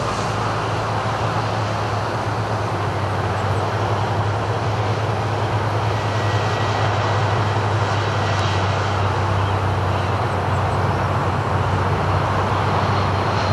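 Steady jet-aircraft engine noise across the airfield: a continuous rushing sound over a low hum, growing slightly louder after a few seconds, with a faint thin whine in the middle.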